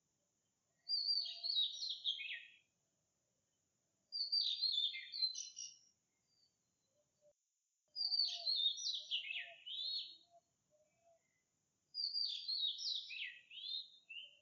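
Magpie calling: four short phrases of quick, mostly falling notes, one about every four seconds.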